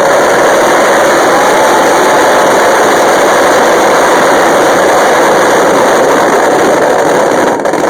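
Fireworks barrage: crackles and bangs so dense they merge into one loud, steady roar, easing off near the end.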